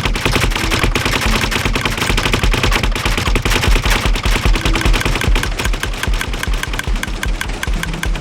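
Homemade noise-making gadget running, giving a loud, rapid, steady rattle of sharp clicks, several a second.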